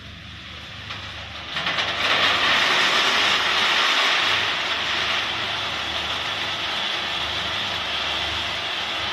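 Roasted peanuts pouring out of a drum roaster's discharge chute and rattling into a stainless-steel tray, a dense pattering rush that starts about a second and a half in, is loudest for the next few seconds, then eases a little and holds steady. The roaster runs with a low hum underneath.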